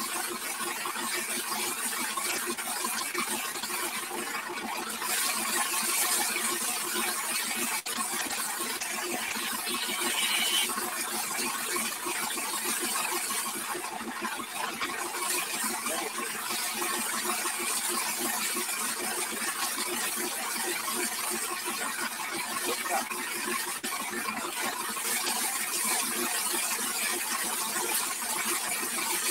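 A strong water jet from a hose spraying against a tractor's wheel and body and splashing onto the ground, a steady hiss, with an engine running steadily underneath.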